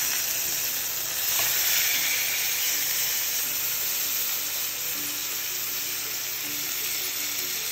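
Chicken breasts searing in hot oil in a frying pan, a steady sizzle throughout.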